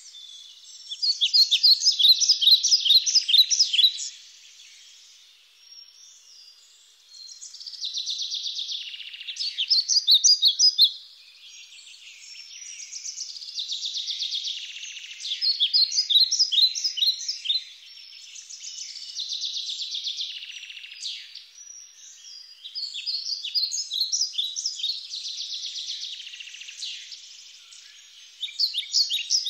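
Songbirds singing in the woods: loud phrases of rapid high notes recur every few seconds, with softer continuous twittering between them.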